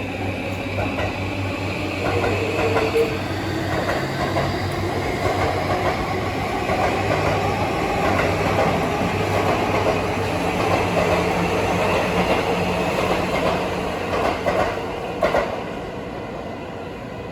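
Electric commuter train running on rails, heard from inside the passenger car: a steady rumble with a low motor hum, a few rail-joint clacks and a faint whine that drifts lower. The noise eases over the last couple of seconds.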